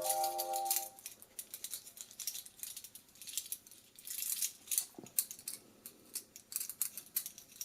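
Die-cast metal toy handcuffs being worked around a wrist: a long run of small, light metal clicks and rattles, irregular and bunched in spurts.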